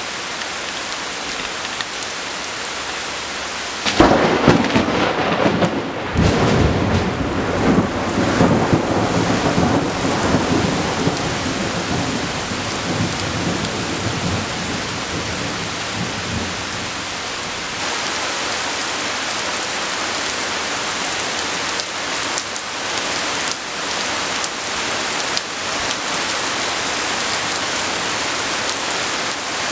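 Heavy rain falling steadily. About four seconds in, a close lightning strike sets off a sudden sharp thunderclap, followed by rolling thunder that rumbles and fades over about ten seconds. The rain grows heavier a little past halfway.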